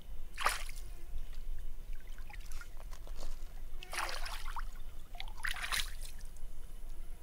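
Water splashing and dribbling as a pig's head is rinsed and scrubbed by hand in river water: one splash about half a second in, then two more a little before and after the fifth second.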